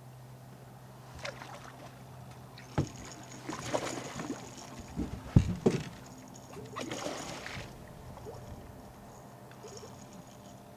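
A hooked bass being landed and handled in a fishing boat: a few sharp knocks against the boat and short scraping, splashy noises, over a low steady hum that drops away about three seconds in.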